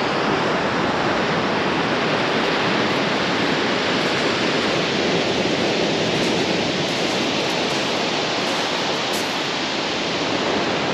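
Surf breaking and dragging back over a steep shingle beach in a heavy swell: a steady, loud rushing hiss.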